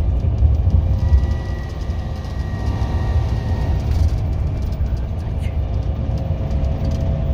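Road and engine noise heard from inside a moving car: a steady low rumble.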